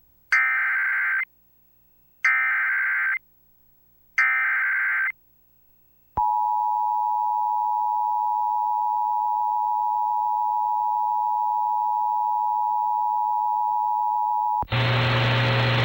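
Emergency Alert System broadcast over FM radio: three short bursts of the digital SAME header data, about two seconds apart, then the two-tone EAS attention signal held steady for about eight seconds, which cuts off into radio hiss near the end. Together they announce an incoming emergency alert, here a flood warning.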